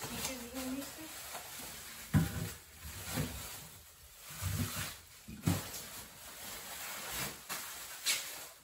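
Packages of frozen food in plastic bags rustling and knocking as they are packed into a chest freezer. There are a few sharper thuds, the loudest about two seconds in, another near the middle and one near the end.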